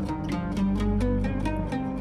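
Background music: quick plucked string notes over a sustained low drone.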